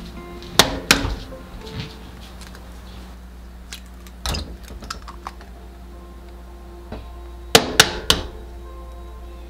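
Sharp knocks and clinks of an egg being knocked and cracked into a stainless steel bowl: two knocks about a second in, one in the middle, and three in quick succession near the end. Soft background music plays underneath.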